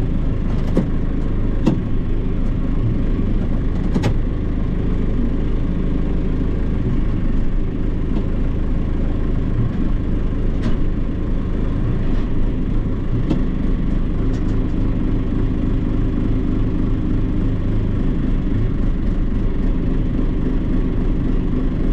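John Deere 2755 tractor's diesel engine running steadily, heard from inside the cab, with a few light clicks.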